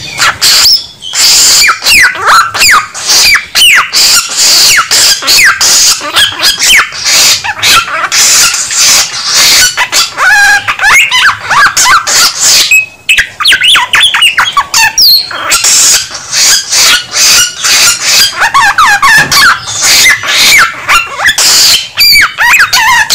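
Samyong songbird in full song, singing loudly and continuously: rapid chattering notes mixed with quick whistled phrases that slide up and down in pitch, with a brief pause about thirteen seconds in.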